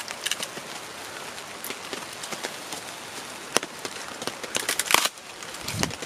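Wet oak cracking and tearing along the grain as a froe is levered through a quartered log to split off a roof shake. It is a run of small crackles and ticks, with sharper cracks about three and a half and five seconds in.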